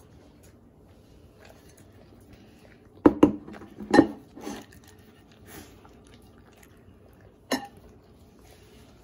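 Dogs licking scraps off ceramic plates on a tabletop, the plates knocking and clattering against the table several times, in a cluster about three to four seconds in and once more near the end.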